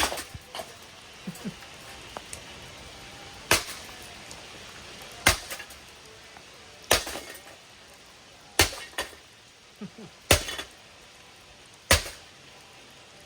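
Six heavy blows striking the brass switch housing and cap of a Hunter Stratford ceiling fan, one about every second and a half to two seconds, each with a short metallic clink, as the cap is battered loose.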